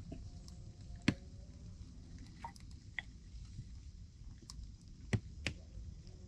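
Wooden sticks knocking and clicking as they are handled and moved, with soft crunching of dry leaves and soil; one sharp knock about a second in and two more close together near the end.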